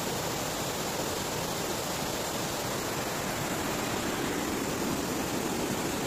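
Steady rushing of a mountain stream cascading over rock slabs and a small waterfall.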